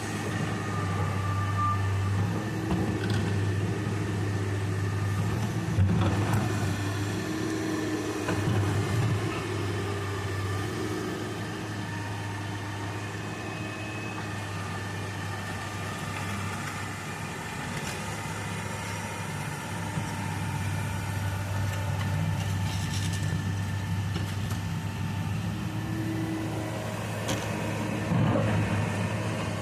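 Excavator's diesel engine running steadily while it works, with shifting tones from the machine over the drone. A sharp knock about six seconds in and another near the end.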